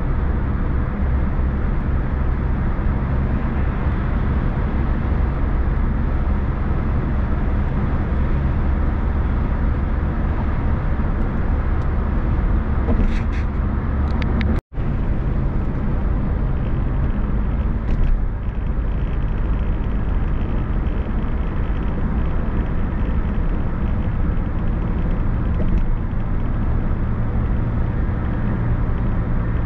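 Steady road noise of a car on the move: a constant low rumble of tyres and engine. The sound cuts out for an instant about halfway through, and a few faint ticks come just before and a few seconds after.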